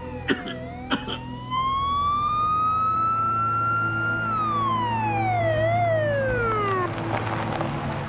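Police car siren wailing: its pitch dips, climbs slowly for a few seconds, then slides down and winds off to a stop about seven seconds in. A few sharp clicks come in the first second, over a low steady hum.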